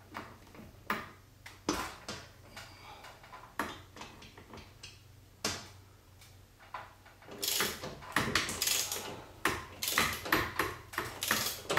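Ratchet socket wrench on a long extension clicking as it drives a mounting bolt up through a steel bracket into the ceiling: a few single clicks at first, then quick runs of ratchet clicks in the last few seconds.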